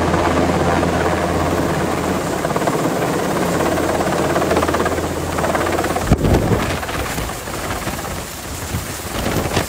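Large helicopter hovering low overhead: a steady low drone of rotor and turbines. About six seconds in, a sudden low rumbling burst gives way to a rougher rushing noise as the rotor downwash blows across the area, whipping up leaves and debris.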